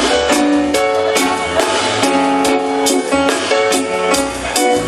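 Live reggae band playing without vocals: a steady drum beat and bass under guitar and held melody notes.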